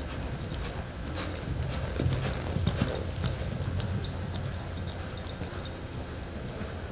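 Hoofbeats of a horse loping over the dirt footing of an indoor arena, a steady run of thuds that grows louder about two to three seconds in.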